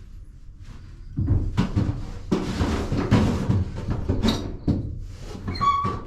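Objects being handled and knocked about in a small enclosed space: a run of irregular clattering knocks and rustles starting about a second in, with a brief squeak near the end.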